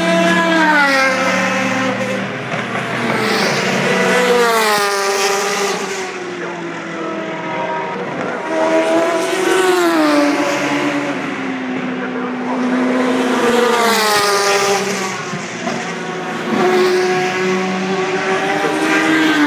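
Endurance race cars at Le Mans passing one after another through a corner, several in turn, each engine note swelling and then falling in pitch as the car goes by.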